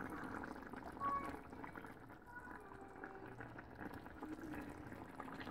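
Sardine curry simmering faintly in a clay pot: a soft, low bubbling.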